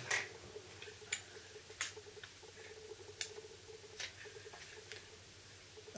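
Light clicks and taps from the plastic body of a camcorder being handled and turned over, a handful spread over several seconds, with a faint steady hum beneath.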